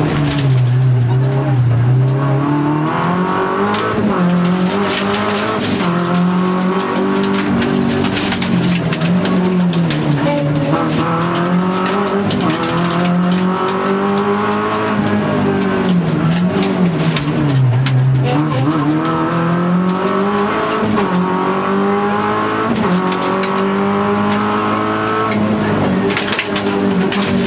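Rally car's engine heard from inside the cabin under hard driving. The revs climb and fall over and over through gear changes and braking for corners, with frequent clicks and knocks from the car over the road.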